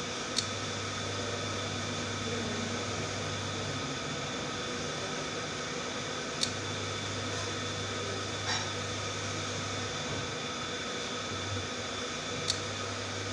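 Electric cooktop heating a covered pan: its low mains hum cuts in with a sharp click about every six seconds and drops out again a few seconds later, the on-off power cycling of a hob set low. A steady fan-like hiss runs underneath.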